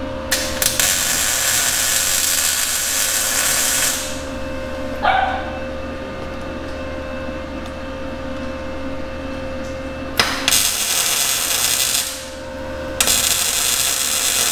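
Welder laying tack welds on the rack and pinion mounts: three bursts of welding crackle, the first about three and a half seconds long, then two shorter ones near the end.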